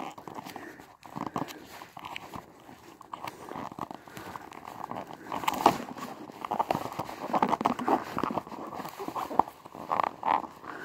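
Hands handling a cardboard toy box against a wooden table: irregular scraping, rubbing and light tapping, growing busier and louder from about halfway.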